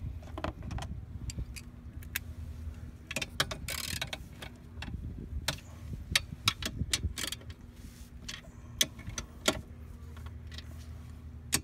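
Socket wrench tightening the bolts of a jet ski's venturi bracket: scattered short metallic clicks and clinks of the tool on the bolts, over a steady low hum.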